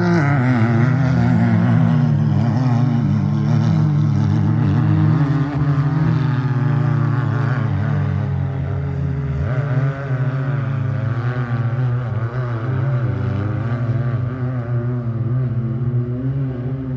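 Engines of off-road racing UTVs running in a loud, continuous drone whose pitch wavers up and down. The drone eases slightly about a third of the way through.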